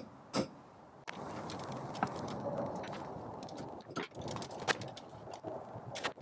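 One hammer tap on the stabilizer bar end link's mount just after the start. Then scattered metallic clicks of a ratchet and socket on the link's bolt, over a steady low rush.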